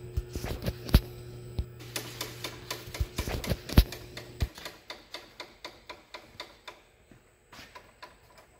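The hand-worked fuel pump on an antique flywheel engine clicking as it is pumped to prime it, drawing gas up from the tank in the base. The first half has uneven metal clicks and knocks. After that it settles into an even clicking of about three strokes a second.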